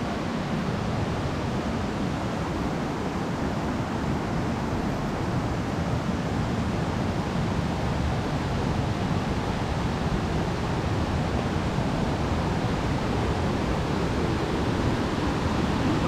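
Steady rush of a mountain stream's waterfalls and rapids running in heavy flood flow.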